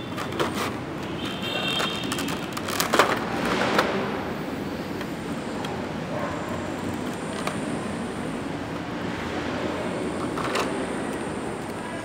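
Stiff clear plastic blister packaging of an action figure being handled and pulled apart, giving scattered clicks and crackles, loudest about three seconds in, over a steady background rumble.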